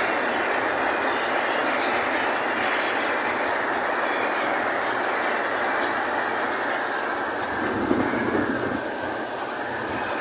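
Heavy rain pouring down steadily on a flooded street, a constant rushing hiss of downpour and running floodwater.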